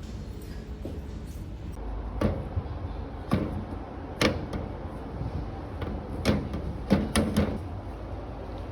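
A series of about seven sharp knocks and clunks at uneven intervals, some close together near the end, over a low steady background hum.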